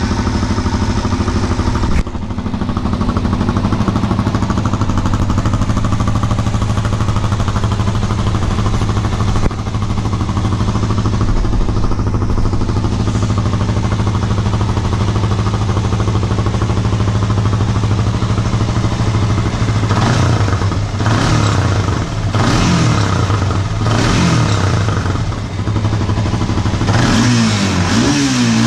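Honda TRX 400 quad's single-cylinder four-stroke engine idling steadily just after starting. From about twenty seconds in, the throttle is blipped five or six times in short revs, quicker revs rising and falling near the end.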